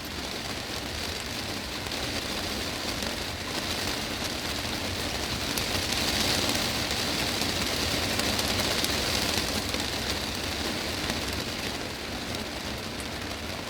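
Heavy rain drumming on a greenhouse's glass roof, a dense steady patter that swells a little louder midway through and eases back.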